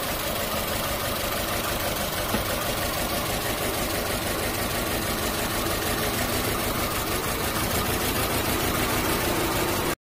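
2013 Holden Trax's Ecotec four-cylinder petrol engine running with a bad misfire, a steady, uneven pulsing run: the P0300 random-misfire fault, which the owner traces to a failing ignition coil pack.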